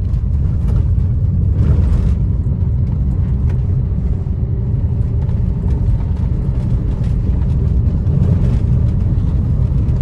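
2016 Maruti Suzuki Ciaz on the move: a steady low rumble of engine and road noise.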